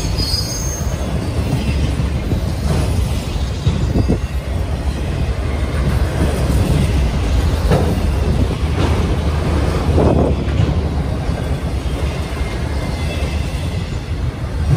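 Freight train of autorack cars rolling past: a steady low rumble of wheels on rail, broken by several clanks and knocks as the cars go by.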